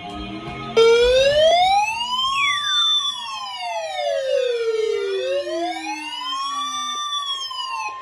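A siren wailing, its pitch sweeping slowly up and down about every four seconds, while a second tone glides steadily downward beneath it. Near the end a steady single-pitch alert tone comes in, the weather radio's warning alarm tone.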